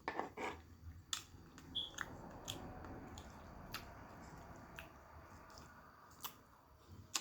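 Close-miked chewing: scattered wet mouth clicks and smacks over a soft, steady crunching haze.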